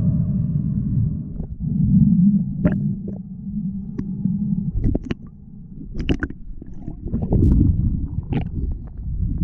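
Muffled underwater rumble of water moving around a GoPro's housing as a spearfisher swims, with a few sharp clicks and knocks scattered through it.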